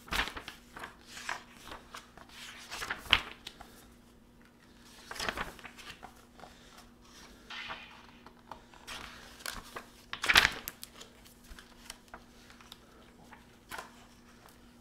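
Pages of a photo book being turned, paper swishing and rustling in a few short bursts, the loudest about ten seconds in.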